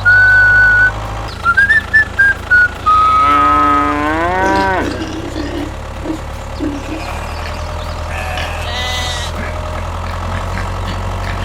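An animal bleat about four seconds in: one long call that rises, holds, then drops off. A weaker call follows near the end. Before it come a few short whistled notes, all over a steady low hum.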